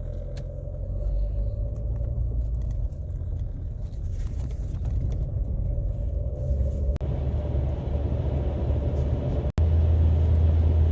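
Steady low rumble of a car driving, heard from inside the cabin, cutting out for an instant near the end.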